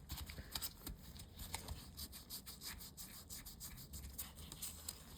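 Faint rubbing with light scattered clicks, the sound of engine parts being handled and turned over by hand.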